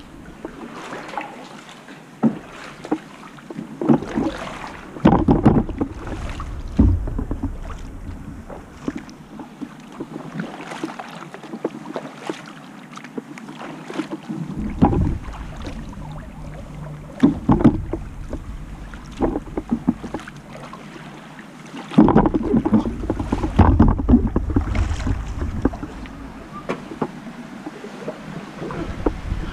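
Double-bladed kayak paddle working in calm water: the blades dip and splash at an uneven rhythm, with water running off them. Wind buffets the microphone in several gusts.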